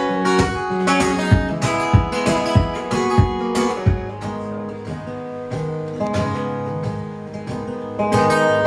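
Acoustic guitar strummed in an instrumental break of a song, with a low thump on each beat for about the first four seconds, then softer held chords that swell again near the end.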